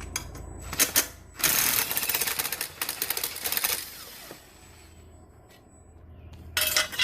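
A socket ratchet clicking quickly while fasteners are turned on a Toro Super Recycler mower during a drive belt change. There are a few single clicks at first, then a fast run of ratcheting for about two seconds, and another short burst near the end.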